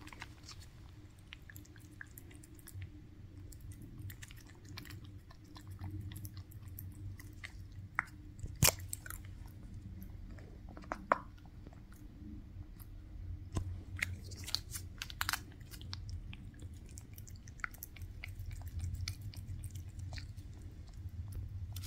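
A tuxedo cat chewing treats, with irregular crunches throughout and a couple of louder crunches about nine and eleven seconds in.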